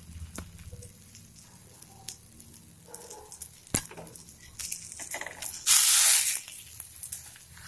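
Spatula working under an oil-cooked dosa on a hot griddle: light clicks and faint sizzling, a sharp tap a little before four seconds in, then a loud burst of sizzling and scraping near six seconds as the spatula slides under the dosa.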